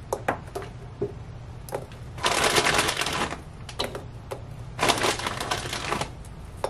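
Cheese balls dropped by hand into a clear plastic mini food processor bowl: light clicks and taps in the first two seconds, then two bursts of rustling of about a second each, starting about two seconds in and near five seconds.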